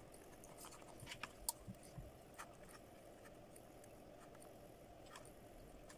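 Near silence: faint room tone with a few light ticks, mostly in the first half, from a soldering iron tip and hands working on a circuit board.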